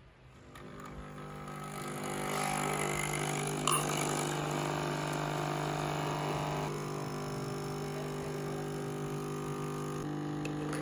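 Nespresso capsule coffee machine's pump buzzing steadily as it brews coffee into a glass, building up over the first two seconds. A single glass clink about four seconds in.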